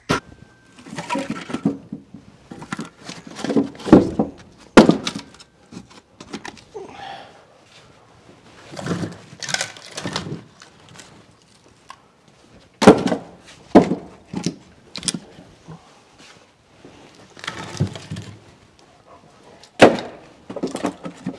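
Split firewood being handled and stacked: irregular wooden thunks and knocks, with sharper clacks about 5, 13 and 20 seconds in.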